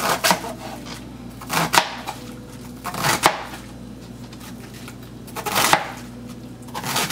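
Knife chopping taro stem into blocks on a cutting board: four cuts about a second and a half apart, each a short slicing sound ending in a knock of the blade on the board.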